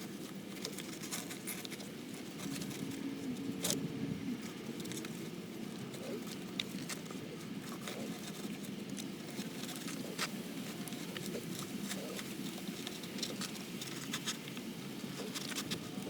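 Scattered light clicks, ticks and clinks of hands and tools working in a car's engine bay, over a steady low hum.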